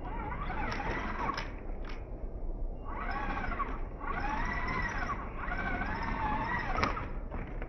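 Axial SCX10 II Trail Honcho RC crawler's electric motor and gears whining under load on a rock climb, in about four rising-and-falling pulses as the throttle is worked, with a few sharp knocks against the rock.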